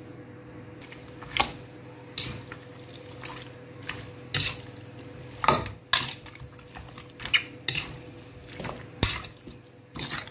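A metal utensil stirring and turning seasoned oxtail pieces in a plastic bowl, with irregular knocks and scrapes against the bowl. A faint steady hum sits underneath.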